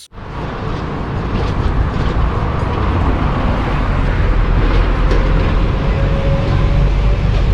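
Sound effect of a bus engine running: a steady low rumble with a rushing noise over it. It cuts in abruptly and grows a little louder over the first few seconds.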